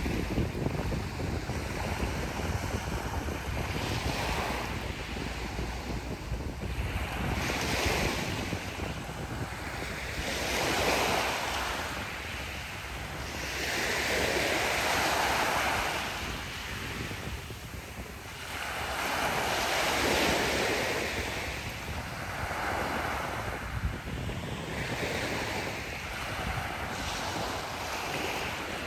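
Small waves breaking and washing up a pebble beach, the hiss swelling and fading every few seconds. Wind buffets the microphone underneath, most at the start.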